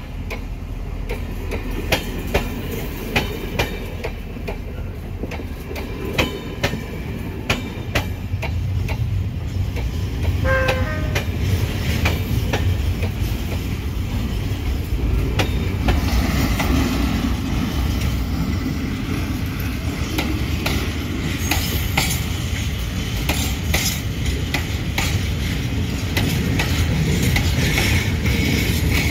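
Passenger coaches rolling past close by with a steady rumble, their wheels clicking in pairs over rail joints. A short horn toot about ten seconds in.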